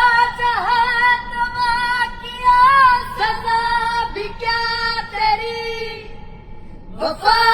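A high female voice singing a melody over music, with long held, sliding notes. The voice stops briefly about six seconds in and comes back near the end.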